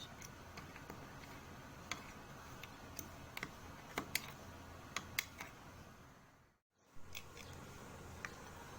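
Sparse light clicks and taps of small hand tools working on a Bolex H-16 film camera's metal body while a 6 mm door nut is undone, over a low room hum. The sound drops out completely for a moment about two-thirds of the way through.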